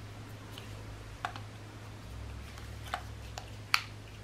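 Plastic fishing-line spools being handled, giving four short sharp plastic clicks, the last the loudest, over a steady low hum.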